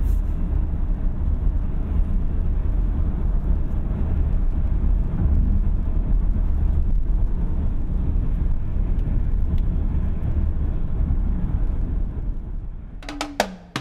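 Steady low rumble of road and wind noise inside a Kia Carnival Hi-Limousine minivan's cabin while it cruises on a highway, fading out near the end.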